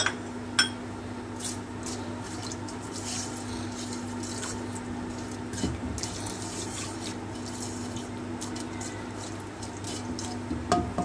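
Whole spices (cumin seeds, bay leaves, cloves, dried chilli) sizzling in hot cooking oil in a nonstick wok, with scattered crackles and pops as they fry. A spatula knocks against the pan a few times while stirring.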